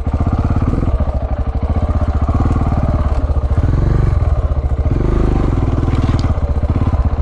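KTM 690 single-cylinder motorcycle engine running under way, its pulsing exhaust note rising and easing with the throttle as the bike is ridden along a trail.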